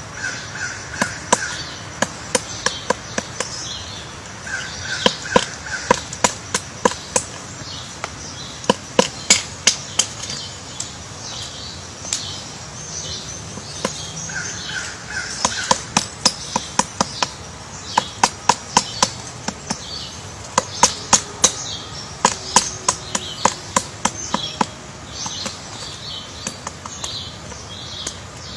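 Woodpecker pecking at wood: runs of sharp taps, several a second, coming in irregular spells. Small birds chirp and sing high-pitched throughout, and a short buzzy call sounds three times.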